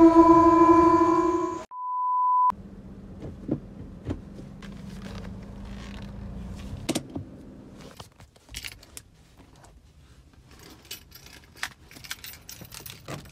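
A loud, steady horn-like chord cuts off about a second and a half in, followed by a short steady beep. Then come quiet handling sounds inside a car cabin, with scattered clicks and keys jangling.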